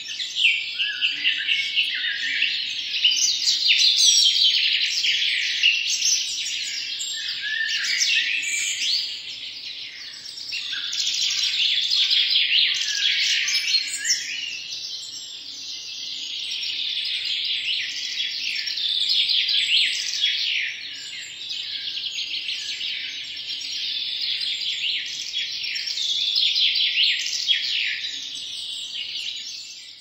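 Parrot chicks calling: a dense, continuous chatter of rapid high-pitched chirps from several birds at once, swelling and fading in waves.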